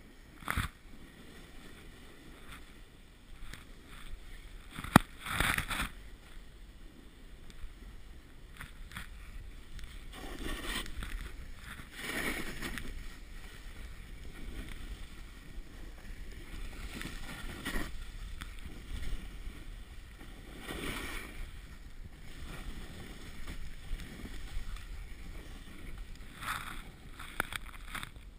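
Snowboard sliding and carving through fresh snow, the swish swelling with each turn. A sharp knock comes about five seconds in.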